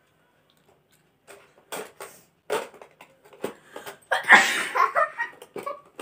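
A woman sneezing once, loudly, about four seconds in, after a few short breathy sounds. The sneeze is set off by tickling inside her nostril with a cotton-tipped toothpick.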